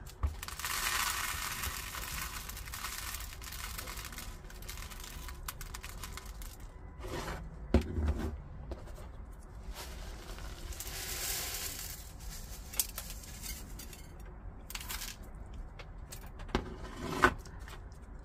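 Handling noise from a small plastic nursery pot of gritty succulent soil. Rustling and scraping runs for a few seconds near the start and again around the middle, with a few sharp knocks.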